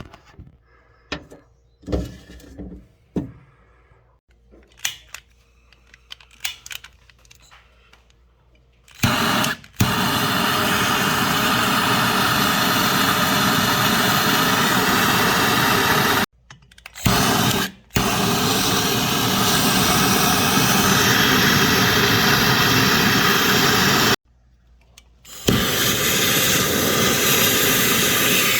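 Scattered clicks and knocks, then a loud steady rushing hiss that starts abruptly about nine seconds in and breaks off suddenly twice before resuming.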